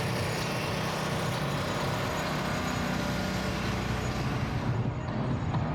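Steady low engine hum over a wash of city noise.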